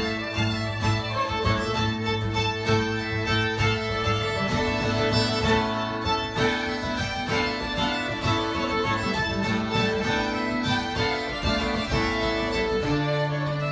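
Two fiddles and an acoustic guitar playing a bourrée live, the fiddles carrying the tune over guitar chords.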